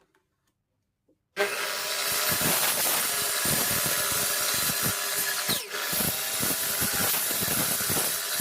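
Electric power tool running and working pine boards. It starts suddenly about a second and a half in, with a steady motor hum under the noise of the cut, and dips briefly past the middle before picking up again.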